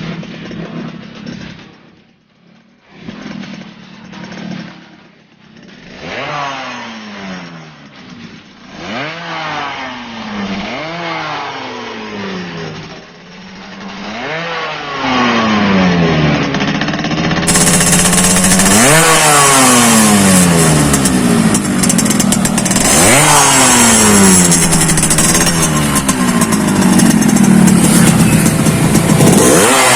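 Yamaha RX-King's two-stroke single-cylinder engine with a gutted ('bobokan') muffler, revved again and again. Each throttle blip rises in pitch and falls back, every two to four seconds, and the revs get louder in the second half. The gutted exhaust gives the crisp, raspy 'garing ngorok' tone.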